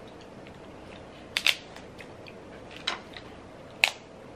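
Snow crab leg shells cracking as they are snapped open by hand: a few sharp cracks, two in quick succession about a second and a half in, then single ones near the end.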